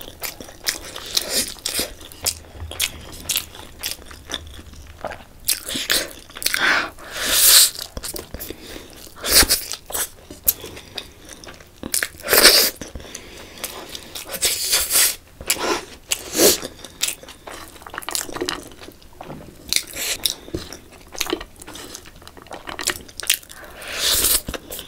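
A person eating spicy instant noodles by hand, slurping strands into the mouth and chewing. The noises come in an irregular run, with a few louder, longer slurps between the quicker chewing sounds.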